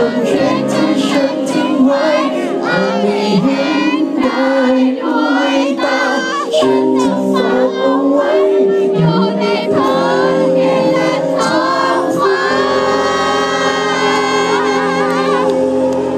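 Live band music with a male singer singing into a microphone; late in the passage he holds one long wavering note.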